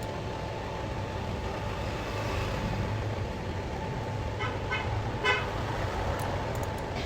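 A vehicle running steadily, with three short horn toots a little past halfway; the third is the loudest.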